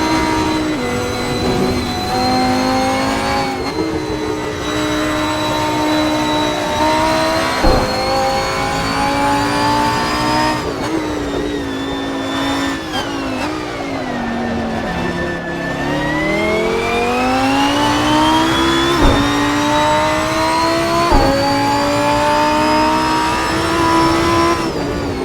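Lamborghini Huracán Performante's naturally aspirated V10, heard onboard, revving hard through the gears: the pitch climbs and drops back at each quick upshift, with a sharp pop at several shifts. About halfway through the revs fall away as the car slows, then climb again through several more upshifts.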